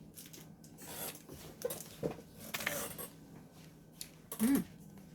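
Rustling and rubbing of hard-candy packaging being handled, in several short noisy bursts, with a brief hummed vocal sound near the end.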